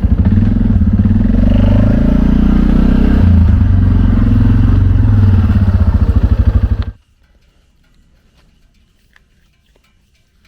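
Suzuki King Quad 500 ATV's single-cylinder engine running close by with steady firing beats, then switched off abruptly about seven seconds in.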